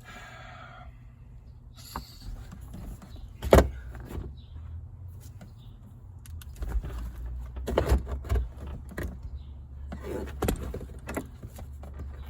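Knocks, clicks and rattles of hand tools and interior parts being worked on inside a stripped car body, with one sharp knock about three and a half seconds in and a run of clattering knocks in the second half.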